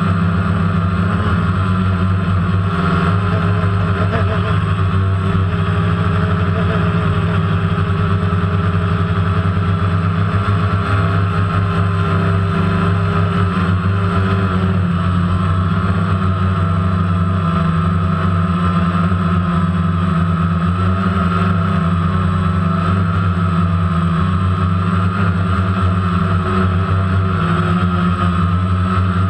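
DJI Phantom quadcopter's electric motors and propellers whirring steadily in flight, recorded close up by the onboard GoPro Hero3, with a constant pitch throughout.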